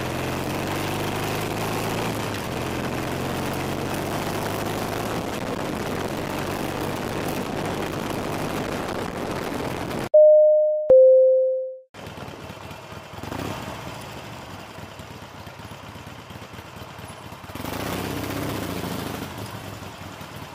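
Motorcycle engine and wind noise while riding. About halfway through, two loud descending pure tones sound, each dying away like a ding-dong chime, and the loudest thing here. After them a quieter, steady motorcycle engine noise follows.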